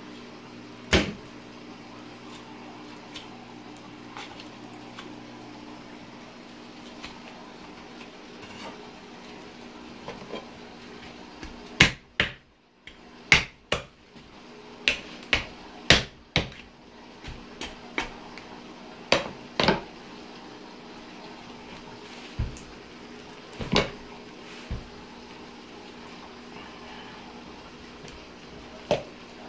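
Sharp knocks and clatters of a knife, bone and meat against a cutting board as a pig's head is deboned. They come in scattered groups, most densely around the middle, over a faint steady hum.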